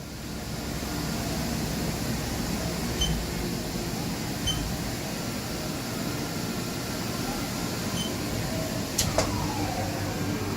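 Haas Super VF-2SS vertical machining centre running with a steady mechanical hum. A few short high beeps sound along the way, and about nine seconds in a sharp click is followed by falling whines.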